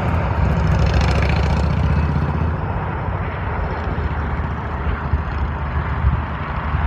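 Jet aircraft engines: a steady, loud rumble with a hiss over it that eases off about two and a half seconds in.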